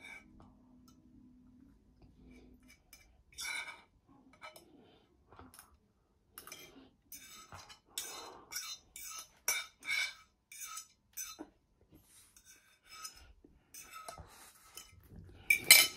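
A metal spoon scraping and clinking against a bowl as the last bite of rice is scraped into the mouth: a string of short scrapes and clinks, loudest near the end.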